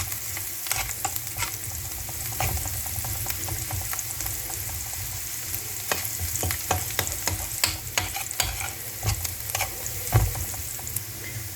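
Chopped onion and garlic frying in oil in a paella pan, sizzling while a utensil stirs them, scraping and clicking against the pan many times.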